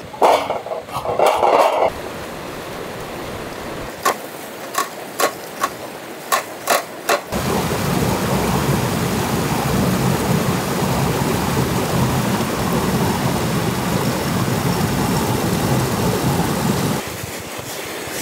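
Coconut being scraped on a serrated coconut scraper: a loud scraping burst at the start, then a string of sharp strokes. From about seven seconds in, a steady loud rush of river water pouring over a small rocky cascade, dropping near the end.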